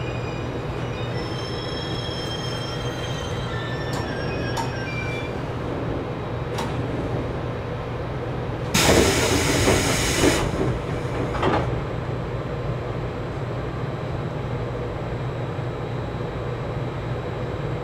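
JR Kyushu 811 series electric train stopping, with thin high brake squeal and a few clicks as it rolls in, then about nine seconds in a loud rush of air as the passenger doors slide open, followed by a shorter burst about a second later. A steady low hum from the train runs underneath.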